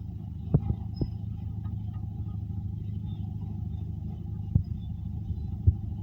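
Caterpillar D8 bulldozer's diesel engine running steadily under load, with a handful of sharp clanks: a pair near one second and two more in the last couple of seconds.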